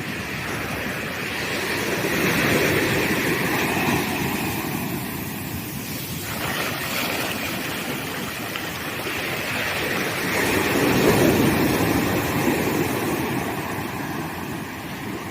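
Ocean surf breaking on a sandy beach, a continuous rushing wash that swells as a wave breaks about two seconds in and again, louder, about ten seconds in.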